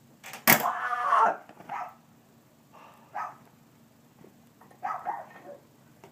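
A dog barking several times in short bursts. About half a second in comes a sharp, loud burst, the loudest sound.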